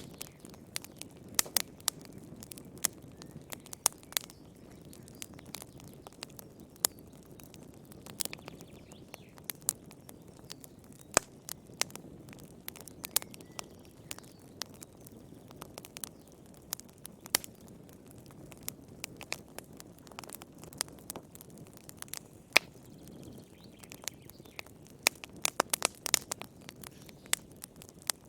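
Wood fire crackling in a fireplace: irregular sharp pops and snaps, a busier cluster near the end, over a steady low rumble of burning.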